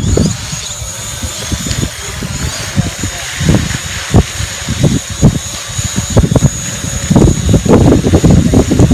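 Small quadcopter drone hovering low, its propellers giving a steady high-pitched whine. Irregular low rumbling gusts of wind on the microphone come and go, busiest in the last few seconds.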